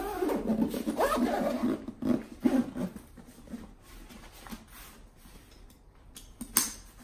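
Lowepro Fastpack 250AW nylon camera backpack being pulled and turned over on a tabletop: fabric rustling and scraping, loudest in the first three seconds. One sharp click comes about six and a half seconds in.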